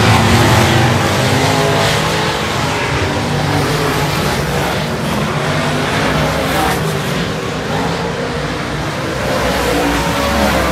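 Several USMTS dirt-track modified race cars' V8 engines running as the cars circle the track together. A steady, fairly loud engine sound with no sharp revs or single pass standing out.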